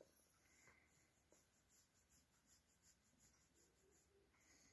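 Near silence: room tone, with a few faint soft ticks in the first second or so.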